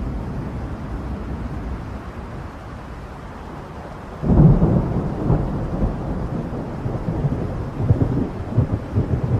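Thunder: a low rumble dies away over the first few seconds, then a sudden loud clap about four seconds in rolls on as uneven rumbling.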